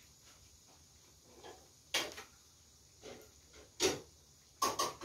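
Hot oil popping in a pan as breaded kabocha croquettes deep-fry: about six sharp, irregular pops, the loudest about four seconds in, with a close pair just after.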